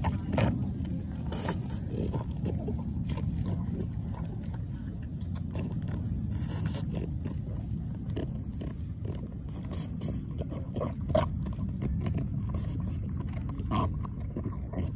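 French bulldog biting and chewing a hard iced dog cookie, in slowed-down slow-motion audio: scattered crunches and clicks over a steady low rumble, with sharper cracks about half a second in, around eleven seconds and near the end.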